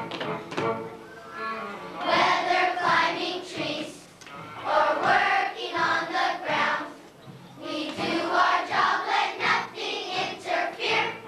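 A choir of young children singing a song together in phrases, with short breaks about four and seven seconds in.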